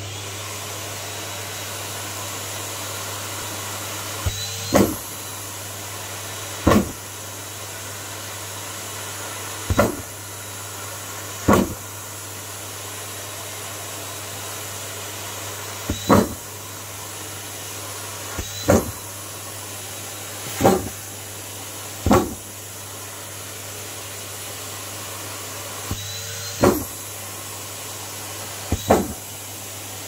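A Numatic James vacuum cleaner runs steadily while marshmallows are sucked up one by one through its metal wand and black corrugated hose. Each one gives a short, loud thwack, about ten in all, spaced a couple of seconds apart.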